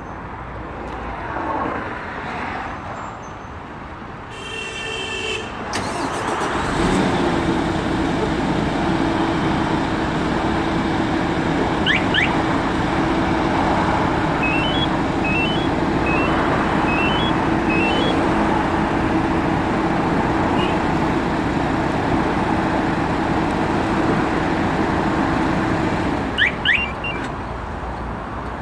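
Short alarm beeps, then a MAN Euro 6 truck's diesel engine starts about six seconds in, set off by the remote-start alarm system, and runs steadily with a constant hum. It cuts off near the end, followed by two short chirps.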